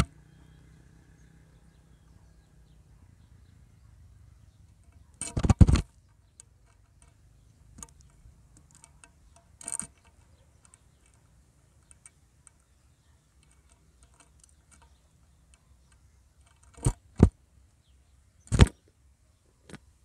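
Sharp metallic knocks and clinks as a small bird pecks and shifts about on the rim of a metal feeding pan: a quick cluster about five seconds in, one near ten seconds, and three more in the last few seconds, with faint ticks between.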